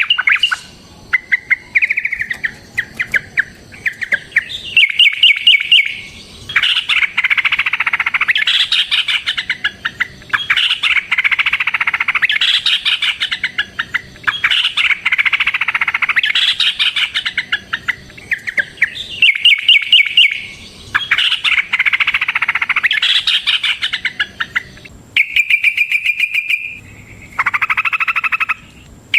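Yellow-vented bulbul (trucukan) singing a long, fast, chattering song. The rapid notes come in bursts of a few seconds each, with short pauses between them. This is the loud, fighting-style song used as a lure call for other bulbuls.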